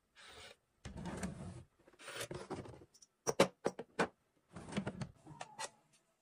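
Bedside-table drawer sliding open on its runners, followed by a few sharp clicks as small rings are handled on the drawer bottom.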